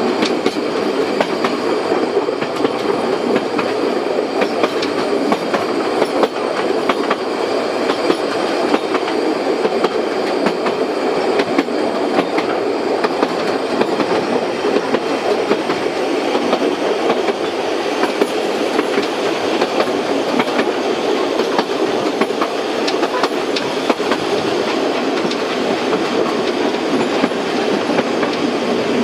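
A 750 mm narrow-gauge steam train running along the line, heard from on board: a steady rolling noise of wheels on rail, with scattered clicks and clatter.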